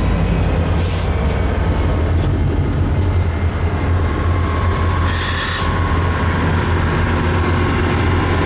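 Diesel train locomotive running close by with a steady low engine drone, and short bursts of high hiss at the start, about a second in and again about five seconds in.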